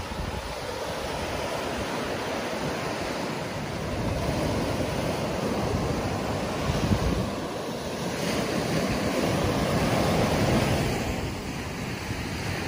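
Small ocean waves breaking and washing up a sandy beach, a continuous wash of surf that swells twice as waves come in. Wind buffets the microphone with a low, uneven rumble.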